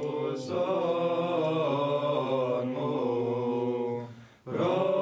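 Orthodox monks chanting in Greek, male voices singing a slow Byzantine chant with a held low note under a gently moving melody. The singing breaks off for a breath a little after four seconds and then resumes.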